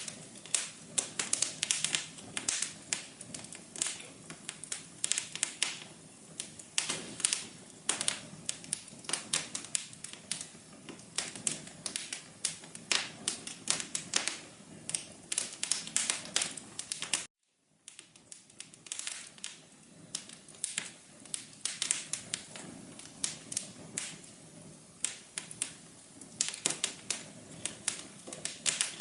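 Fireplace fire crackling: a dense, irregular stream of sharp pops and snaps over a soft hiss, cutting out for a split second about two-thirds of the way through before resuming.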